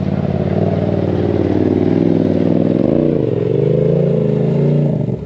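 ATV engine running while riding, its pitch dipping and then rising again about three seconds in as the throttle comes off and back on.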